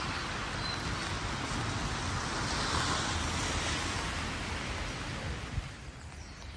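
Steady rushing outdoor noise, an even hiss with a low rumble beneath, that fades about five and a half seconds in.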